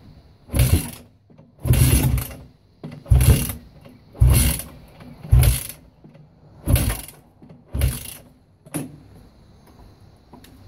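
2003 Yamaha YZ450F being kickstarted again and again, about eight kicks a little over a second apart, the last ones weaker. The 450 cc four-stroke single turns over through its Pro Circuit T4 exhaust with each kick but does not catch.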